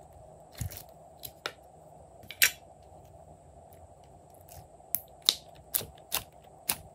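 Light clicks and taps from hands laying clay pieces onto slime in a glass dish, about ten at irregular spacing, the loudest about two and a half seconds in and several close together in the last two seconds, over a steady low hum.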